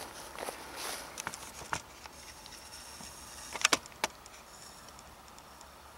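Quiet background with scattered faint clicks and rustles, and a few sharper clicks: a quick pair about three and a half seconds in and one more just after four seconds.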